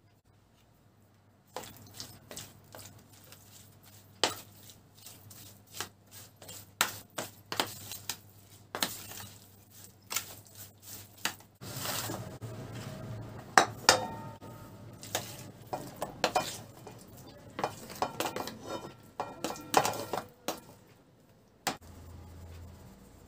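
A metal spoon stirring cubed pork liver with dried oregano in a plastic tub, clicking and scraping against the sides. About halfway through the clinking and knocking of utensil on dish gets louder and busier, then stops abruptly near the end.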